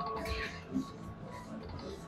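Electronic slot machine music and chimes over the hum of a casino floor.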